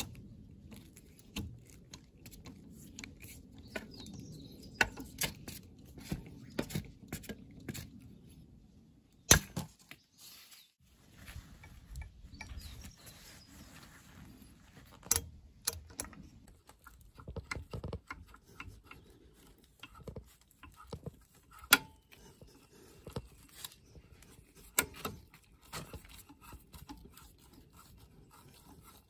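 Metal tools clicking and knocking against a motorcycle center stand and its coil return spring during fitting: scattered sharp metallic clicks at irregular intervals over a low rumble of handling.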